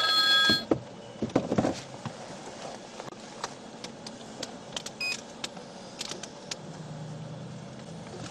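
Inside a parked police cruiser: a short electronic tone right at the start, then scattered clicks and handling noises, and a brief high beep about five seconds in.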